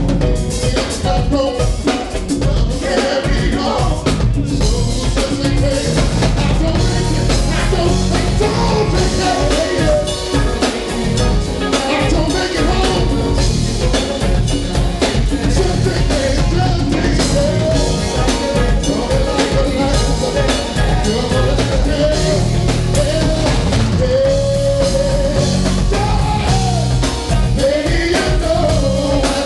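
Live band playing a song: a full drum kit with bass underneath and a lead melody gliding above, continuous throughout.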